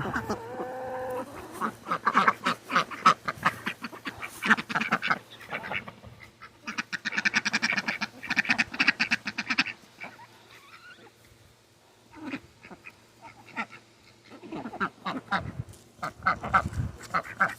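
Ducks quacking in rapid bursts while being fed pellets, with a quieter spell about two-thirds of the way through before the quacking picks up again.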